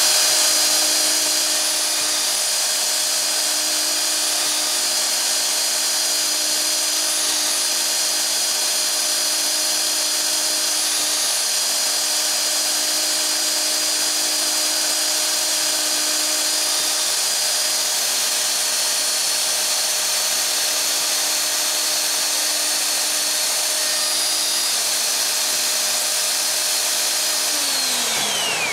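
Festool OF 2200 plunge router with a spiral-fluted bit running at full speed with a steady high whine while plunge-cutting a mortise in hardwood. The motor winds down near the end.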